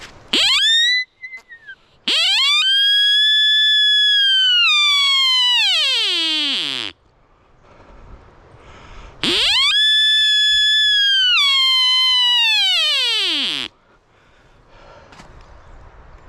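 Three sika deer rutting calls: a short rising squeal, then two long loud calls, each sweeping up fast into a high whistle, holding it for a few seconds, then gliding slowly down into a low groan.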